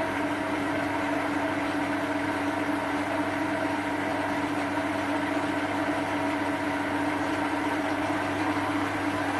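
Small Chinese metal lathe running with the power feed engaged, its leadscrew turning and driving the carriage along the bed to spread freshly applied lubricant over the leadscrew threads. A steady motor and gear-train hum holding several constant tones.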